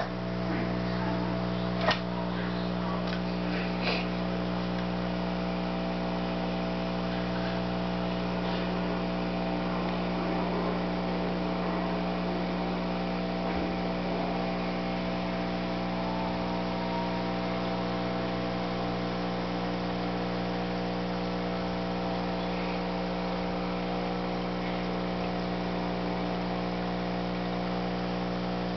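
Steady electrical hum of running aquarium equipment: an air pump feeding an air stone. There are two small clicks about two and four seconds in.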